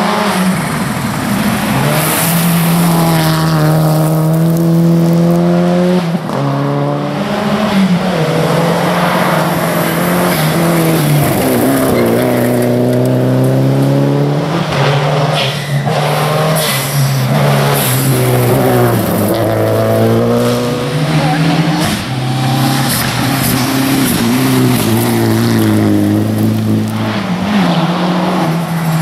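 Rally car engines at full effort on a gravel stage, revving up and dropping back again and again through gear changes and corners, with gravel and stones spraying from the tyres.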